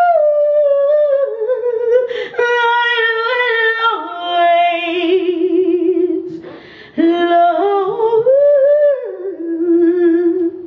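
A woman singing solo into a handheld microphone: a long held high note slides down into drawn-out runs of ornamented, wavering notes, settling on a lower held note, with two quick breaths between phrases.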